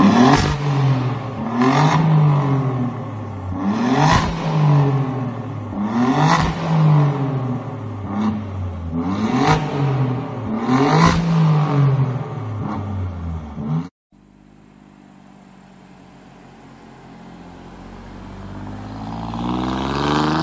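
Alfa Romeo Giulia GTAm's twin-turbo V6 revved while stationary, about one rev every two seconds, each rising and falling with sharp pops at the peak. About fourteen seconds in it cuts to another Giulia's engine accelerating along a road, growing louder as the revs climb near the end.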